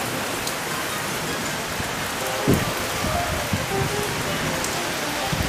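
Heavy rain falling steadily, a dense even hiss of downpour. Two short low thuds break through, one about halfway and one near the end.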